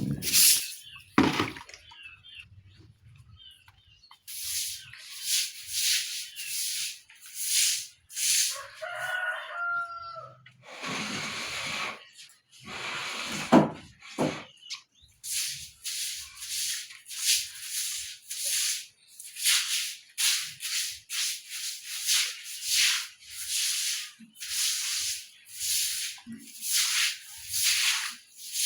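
Repeated swishing strokes of a stiff brush scrubbing and sweeping a wet floor, about one or two strokes a second. A rooster crows once, briefly, about nine seconds in.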